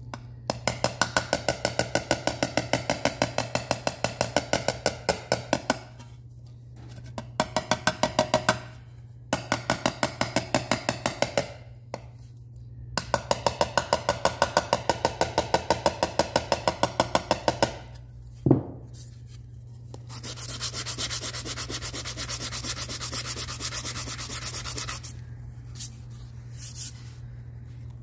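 Small hammer tapping quickly and lightly on an aluminum seat molding in runs of a few seconds, working out a low spot in the trim. A single harder knock comes a little past the middle, then a few seconds of steady sanding with a sanding block over the worked area.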